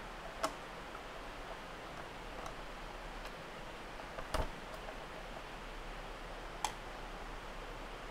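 A few sharp plastic clicks as the lid of a pasta maker is unlatched and lifted off, the loudest a little past halfway, over a faint steady hum.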